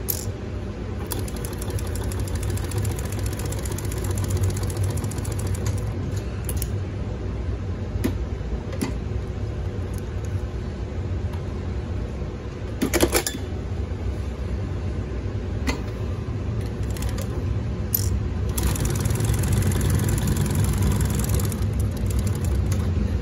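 Mitsubishi split needle bar double-needle lockstitch sewing machine stitching fabric in two runs, one near the start and one near the end, over a steady motor hum. A few sharp clacks in between, the loudest about thirteen seconds in.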